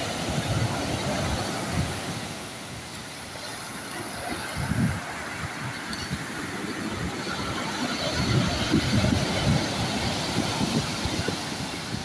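Rough sea surf breaking and washing up a pebble beach, a steady rushing that eases a few seconds in and builds again toward the end, with gusty wind rumbling on the microphone.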